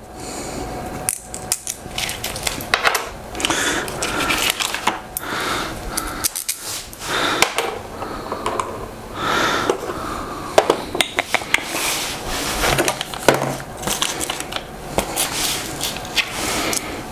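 Small metal screws, washers and TV-mount hardware being handled, with many short clinks and clicks and some rustling.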